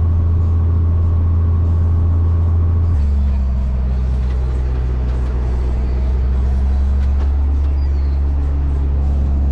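Tractor engine running steadily at a constant speed, its note stepping down to a lower speed about three seconds in.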